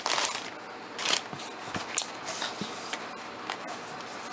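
Paper rustling and sliding as a hand moves sheets and books about in a cardboard box, with a louder rustle about a second in and a few light clicks and taps.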